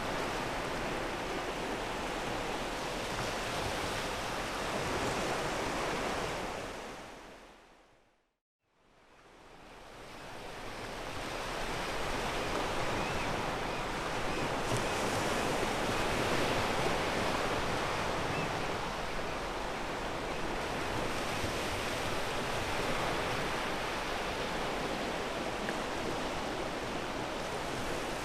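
Waves breaking and washing on a pebble beach, a steady surf wash. About seven seconds in it fades out to a moment of silence, then fades back up over a few seconds.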